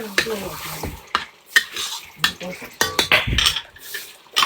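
Kitchen utensils clinking, knocking and scraping against pots and dishes, a run of short irregular clatters, with a brief voice near the start.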